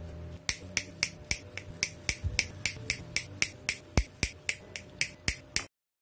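Diagonal side cutters snipping through the wires of an ATX power-supply cable one after another: a quick, even run of sharp snips, about three or four a second, that stops abruptly near the end.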